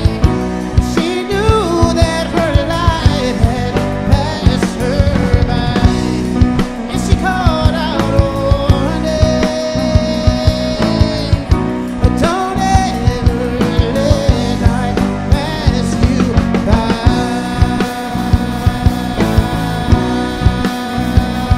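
Live rock band playing: drum kit keeping a steady beat under guitars, with a gliding lead vocal line over the top.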